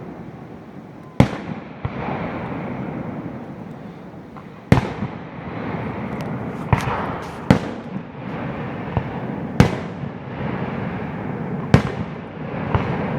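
Aerial fireworks shells bursting: about seven sharp bangs a second or two apart, each trailing off into a lingering rumble.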